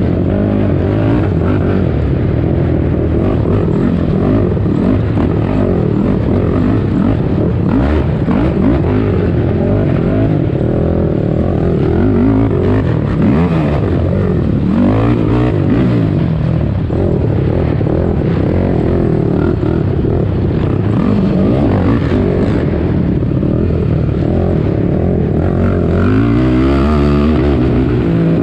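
Race ATV's engine under hard throttle, revving up and down over and over as it accelerates and backs off, its pitch climbing and falling.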